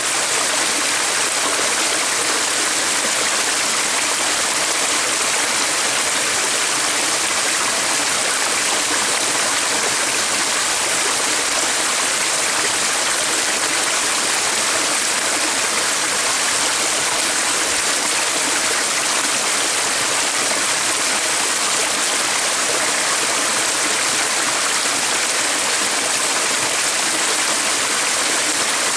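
Running water of a stream: a steady, even rush with no change.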